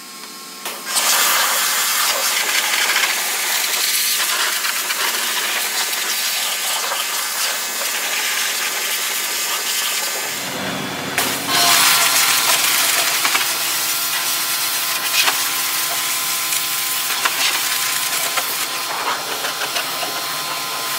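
Pressure washer spray hissing steadily as it blasts a wet car engine bay, starting about a second in. The sound shifts in character about ten seconds in as the spray hits a different spot.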